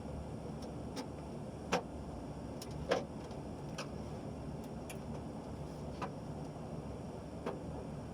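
Irregular sharp clicks and taps, about six in eight seconds, the loudest two near two and three seconds in, over a steady low hum.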